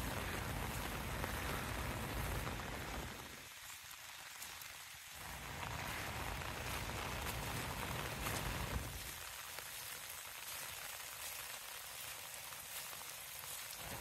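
Steady rain pattering, with fine drop ticks throughout. A low rumble underneath drops away about three seconds in, comes back, and fades out about nine seconds in.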